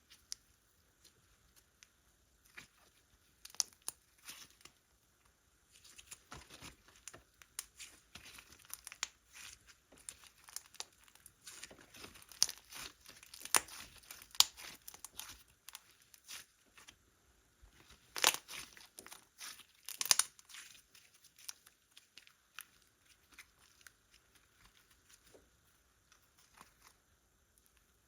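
Slime being worked by hand, giving irregular crackling pops and sticky clicks. The crackling is sparse at first, thickens through the middle with a few louder pops, and thins out near the end.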